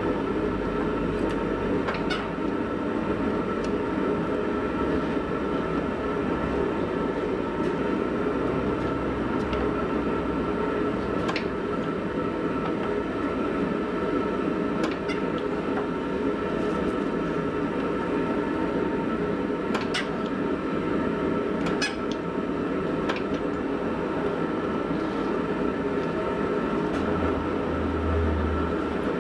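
Steady running of a workshop machine, with a constant hum and a few faint clicks scattered through it.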